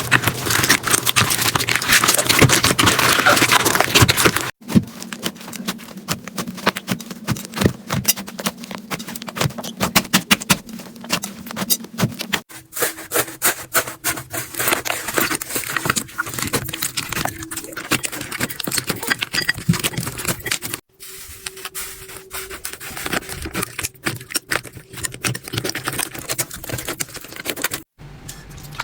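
Slime being squished and worked by hand: a dense run of crackling, popping clicks, in several short clips that cut abruptly from one to the next.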